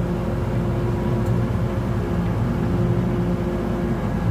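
Engine of heavy construction machinery running steadily at a constant pitch, with a steady whine above its hum, while a steel beam is being lifted.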